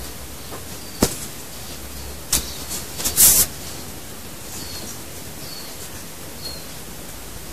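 Toy poodle mouthing and nuzzling a plush toy: a couple of sharp clicks, then a short snuffling rustle about three seconds in, over a steady hiss.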